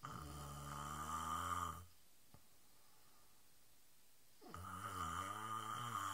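A woman snoring in her sleep: two long snores of about two seconds each, the second starting about four and a half seconds in.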